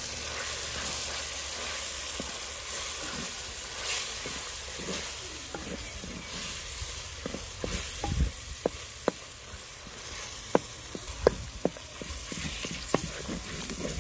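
Chopped roasted eggplant sizzling in hot masala in an earthenware pot as it is stirred with a wooden spoon. From about halfway on, the spoon knocks sharply against the clay pot, more than a dozen separate raps.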